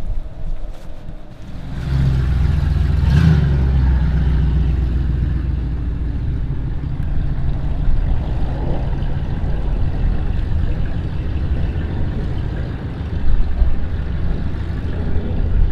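A car's V8 engine starts about two seconds in, is revved briefly, then runs steadily with a few throttle blips near the end.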